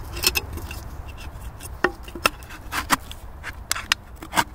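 Scattered sharp knocks and clicks of handling: firecrackers being set into empty tin drink cans. About ten irregular knocks, none of them an explosion.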